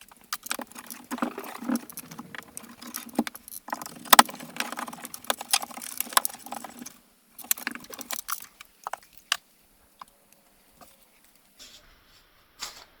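Irregular rustling, tapping and clicking of things being handled, busy for the first seven seconds, a shorter flurry around eight seconds, then only a few scattered clicks.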